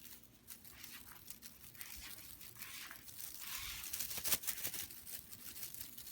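Soft rustling and crinkling, with scattered small scratches and ticks, growing busier and louder about four seconds in.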